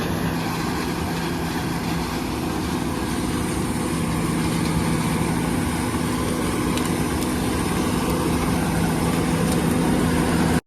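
Diesel engine of a John Deere 9860 STS combine running steadily, a constant low hum with no change in speed.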